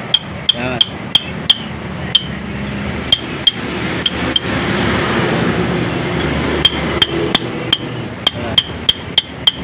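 Light hammer taps on a drift, metal on metal with a short high ring each time, seating the new axle oil seal into the rear axle housing of a Toyota Tamaraw FX a little at a time. The taps come in quick runs, with a pause around the middle and a faster run near the end.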